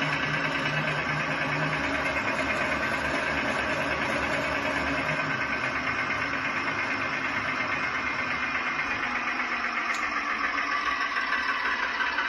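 Onboard sound system of a 5-inch gauge battery-electric Brush 0-4-0 shunter model playing a simulated diesel engine through its speaker, running with a steady rhythmic beat as the wheels turn on the bench. A low note drops out about two seconds in, and the engine note shifts near the end.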